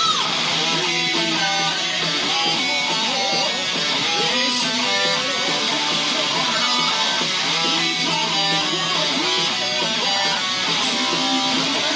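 Electric guitar playing a heavy metal song along with the full band recording, a dense, steady run of notes over bass and drums.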